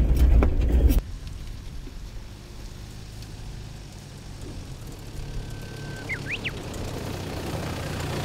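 A louder passage for about a second, then an abrupt drop to a steady low vehicle engine hum. A brief high tone glides upward a little past the middle.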